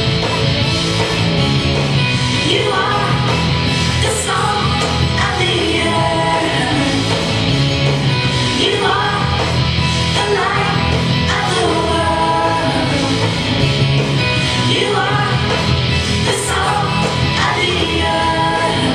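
Rock-style song with a singer over a full band.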